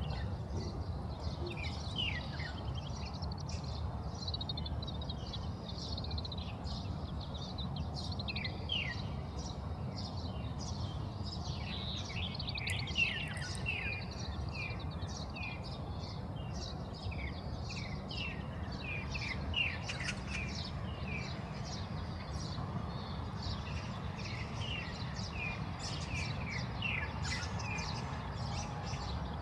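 Oriental greenfinch calling: runs of short, quick falling chirps, over a steady low background rumble.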